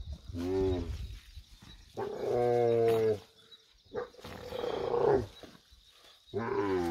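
She-camel groaning in four low, drawn-out calls, the third rougher than the others, while her prolapsed uterus is pushed back in by hand.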